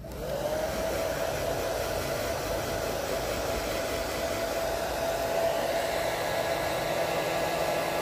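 Hair dryer switched on: its motor whine rises over the first half second, then settles into a steady tone over a constant rush of blown air.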